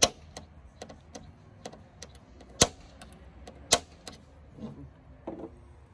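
Small metal clicks and taps of a screwdriver working a screw into a metal bracket. Three of the clicks are sharp and loud: one right at the start, one about two and a half seconds in and one near four seconds, with lighter ticks between them.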